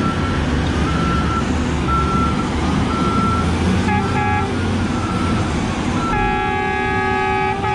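Diesel engines of a mining haul truck and a Liebherr hydraulic mining excavator running steadily, with the truck's reversing alarm beeping about once a second as it backs in to be loaded. A horn gives two short toots about four seconds in, then a long blast from about six seconds on.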